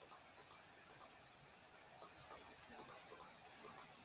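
Near silence broken by faint, irregular clicks of a computer mouse, several in quick pairs.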